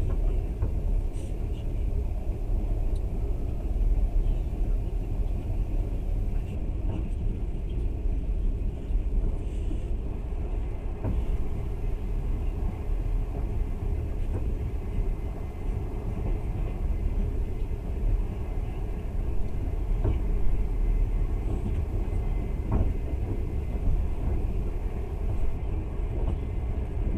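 Passenger train running steadily, a continuous low rumble of wheels on rails heard from inside the carriage, with a few faint clicks.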